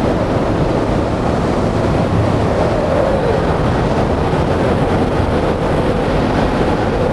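Wind-tunnel airflow at about 75 mph, a category one hurricane's strength, blowing across the microphone: a loud, steady rush of wind.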